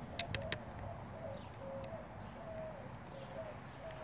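A bird calling in a run of short notes at one steady pitch, each dipping slightly at its end. Three or four quick, sharp clicks sound just after the start.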